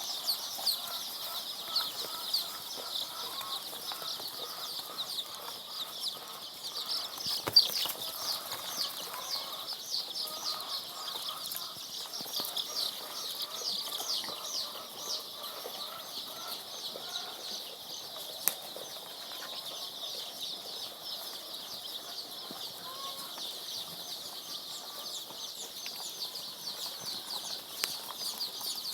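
A brood of three-day-old layer chicks peeping nonstop: a dense chorus of high, falling cheeps. There are a couple of sharp taps, one about seven seconds in and one past the middle.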